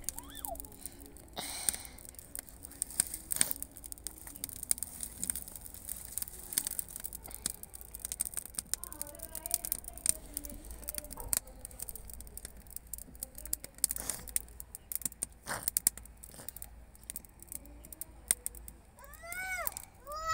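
Dry twigs crackling and snapping in the fire of a wood-fired clay stove as they are fed in, a steady scatter of sharp clicks. A crow caws a few times near the end.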